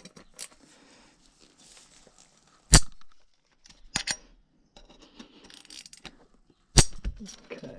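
Sharp metallic cracks and clicks from a Torx key undoing tight chainring bolts on a bicycle crankset, with scraping and handling noise between them. The loudest crack comes about three seconds in, and another falls near the end.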